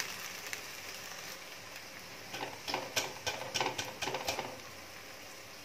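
A steady faint sizzle from the prawn masala on a low flame. About two seconds in comes a quick run of metal scrapes and clinks, lasting about two seconds, as a metal slotted ladle scoops half-cooked basmati rice out of a clay pot.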